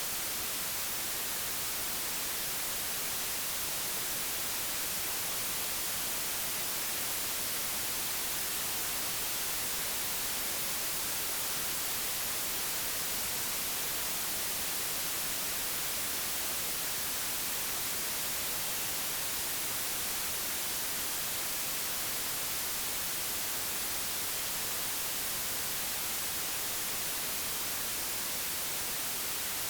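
Computer-generated pure white noise: a steady, even hiss that does not change.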